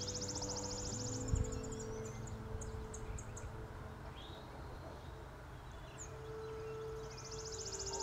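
Chipping sparrow singing its rapid, dry, even high trill, about three seconds long, then starting again near the end, with a few short chirps from other birds in between. A single low thump comes about a second and a half in.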